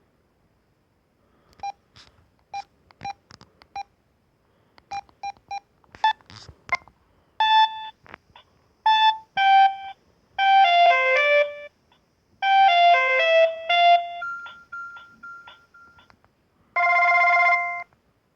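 Samsung SGH-C160 mobile phone playing a series of short electronic ringtone melodies through its speaker. It opens with a run of short, evenly spaced beeps about a second and a half in, then quicker synthesised tunes of several notes, with brief silences between phrases, and ends on a held chord.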